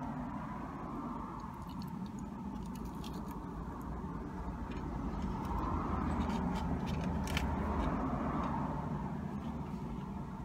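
Road traffic passing on a busy main road, heard from inside a parked car: a steady low rumble with vehicles swelling past, loudest around six to eight seconds in.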